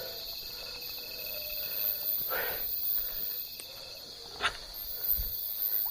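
Insects droning steadily in a high, even tone in the forest, with a few short noises at about the middle and near the end.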